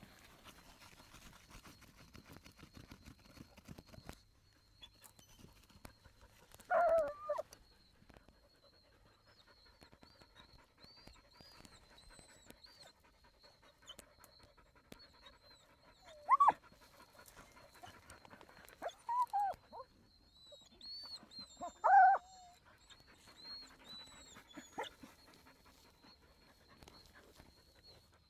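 Beagle and American foxhound digging at an armadillo burrow, panting hard and scratching at the soil. They give four short, high whines: one about a quarter of the way in and three more in the second half. The whines are the excited sound of hunting dogs on an armadillo's scent.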